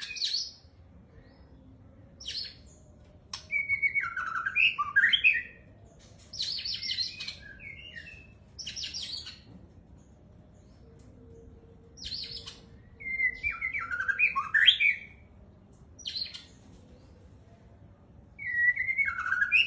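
White-rumped shama (murai batu) singing a series of varied phrases separated by short pauses, mixing clear whistled notes that slide up and down with scratchy, higher chattering notes.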